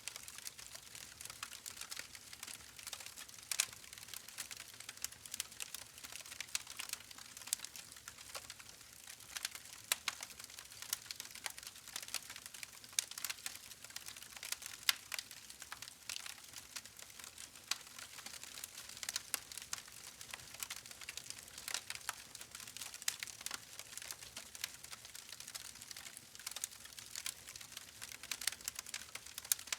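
Campfire burning, with a steady stream of small irregular crackles and pops over a faint hiss.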